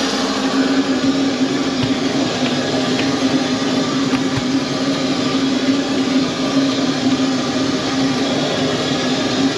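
A steady, unbroken machine hum with a low droning tone and a hiss above it.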